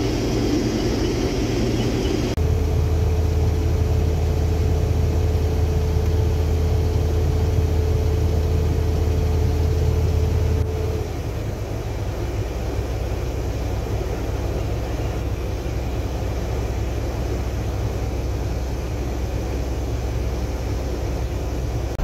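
Steady engine and machinery drone of a Case IH Axial-Flow combine heard from inside its cab, across several joined clips: harvesting corn, then running its unloading auger to fill a semi trailer with grain. The sound changes abruptly about two seconds in and again about eleven seconds in, where the clips are cut.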